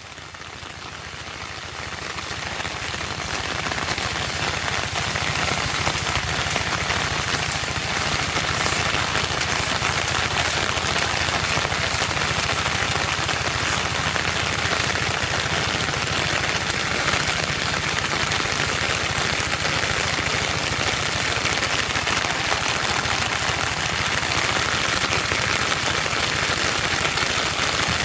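Heavy rain falling, a dense, steady hiss with many fine drop patters. It fades in over the first few seconds, then holds even.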